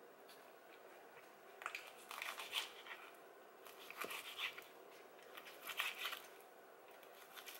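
Kitchen knife cutting through a fillet of grilled eel on a plastic cutting board, still partly frozen, in three short bouts of crunchy scraping strokes about a second each.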